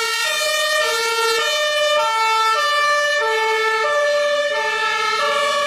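Ambulance two-tone siren sounding, a high note and a low note in turn, steady and repeating.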